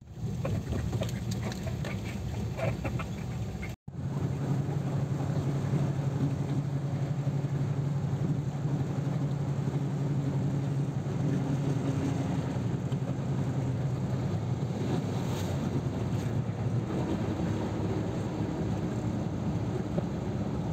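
1993 Volkswagen Kombi's air-cooled flat-four engine droning steadily at cruising speed, heard from inside the cab with road and wind noise. For the first few seconds there are light scattered clicks and rustles over a lower hum, ending in a brief dropout before the steady drive.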